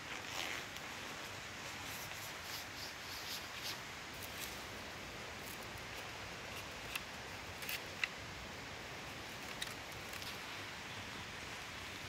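Steady hiss of rain with rustling in the first few seconds and a few sharp clicks or taps later on.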